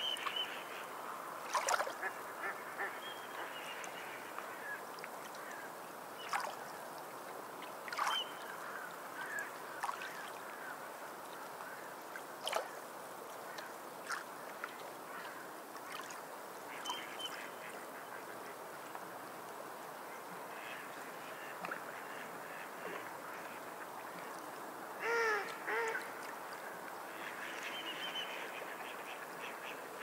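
Waterfowl calling over a steady wash of water: short calls scattered throughout, with a louder pair of calls near the end.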